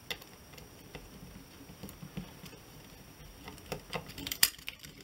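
Light clicks and taps of small metal and plastic parts being handled on a camcorder tape-drive chassis. They come more often near the end, with one sharper click among them.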